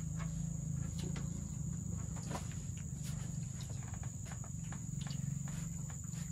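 Insects chirring in a steady high drone, over a low hum, with scattered light clicks and taps.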